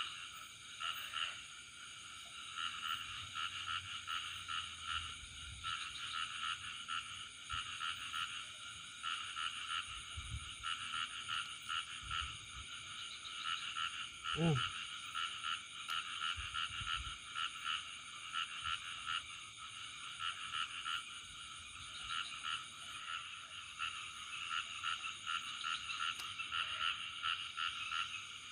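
A chorus of frogs calling without pause, many rapid pulsed croaks overlapping, over a steady high-pitched buzz. A brief, louder wavering sound comes about halfway through.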